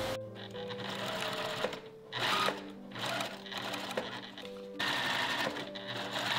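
JUKI domestic sewing machine stitching through gingham cotton fabric, running in short start-and-stop bursts with the longest run in the second half.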